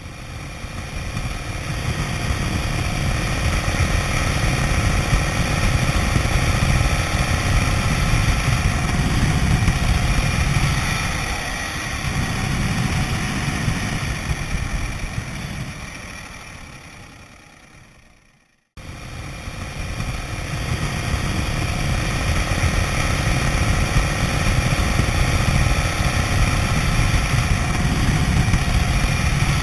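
Harley-Davidson V-twin engine running as the motorcycle cruises along the road, a steady low rumble mixed with wind rushing over the microphone. Past the middle the sound fades away over a few seconds, then cuts back in abruptly at full level.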